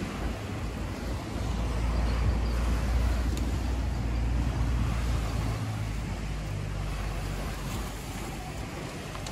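A motor vehicle's engine drones past, with a low rumble that swells about a second and a half in and fades after about six seconds. Under it runs a steady wash of sea surf and wind on the microphone.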